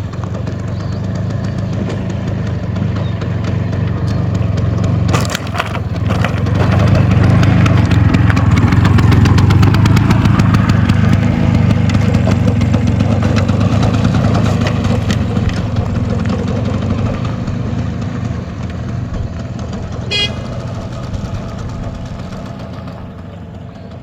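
Bajaj Chetak scooter's two-stroke single-cylinder engine running. It grows louder to a peak around the middle and fades away near the end, with a sharp knock about five seconds in.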